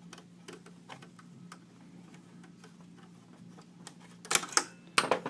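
Light metallic clicks of a screwdriver working a shoulder bolt out of a door latch, then a few louder sharp metal clacks near the end as the bolt comes free and is handled.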